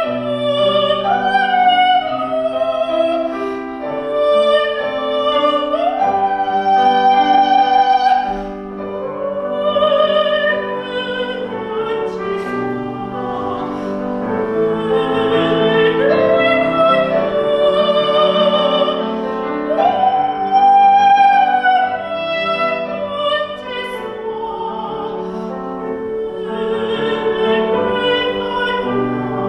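A soprano singing a Korean art song in classical style, holding long notes with vibrato over piano accompaniment.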